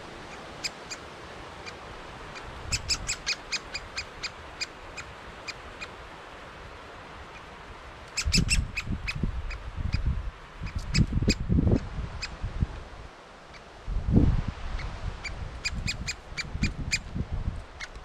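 Great spotted woodpeckers calling: runs of short, sharp, high-pitched notes in quick succession, coming in three bursts, the busiest about eight seconds in. Low bumps and rumbling run between the calls in the second half.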